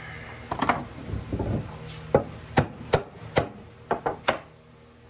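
Hammer tapping a circlip into place on a universal joint's bearing cup on a Triumph Spitfire axle: a string of about eight sharp, short strikes, unevenly spaced.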